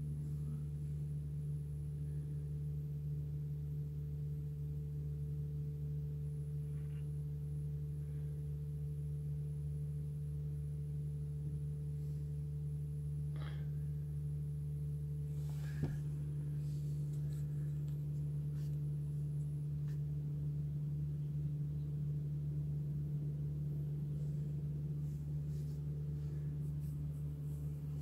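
Steady low engine hum at idle, heard from inside a car's cabin, unchanging throughout, with one brief click about sixteen seconds in.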